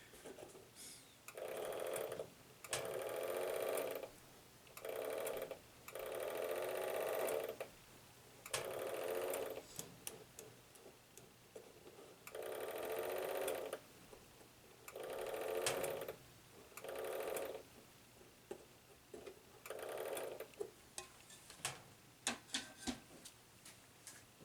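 Small electric motor whirring in about nine short runs of half a second to two seconds each, stopping and starting, followed near the end by a series of sharp clicks.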